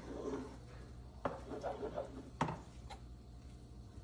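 Spatula and spoon knocking and scraping in pans as scrambled eggs are stirred: two sharp knocks about a second apart, then a fainter one.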